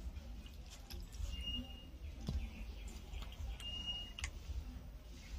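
Raw chicken pieces set into a dry, empty metal karahi: a few scattered soft knocks of meat and bone against the pan. Short bird chirps sound twice in the background.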